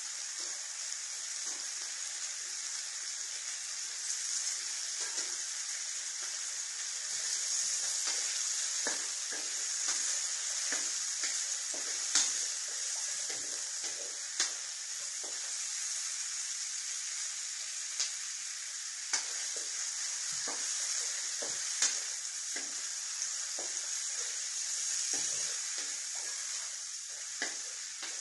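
Beef sizzling in hot oil in a frying pan, a steady high hiss. Partway through it is stirred with a wooden spatula, which knocks and scrapes against the pan several times.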